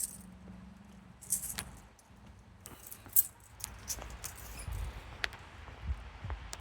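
Light metallic jingling and clicking in two short spells, then a few soft low thumps in the second half.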